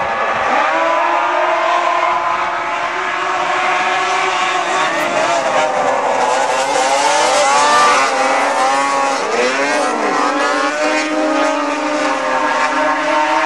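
A pack of racing snowmobiles' two-stroke engines at full throttle, launching off the start line about half a second in. Many engine notes overlap and swoop up and down in pitch as the sleds race past and through the turn.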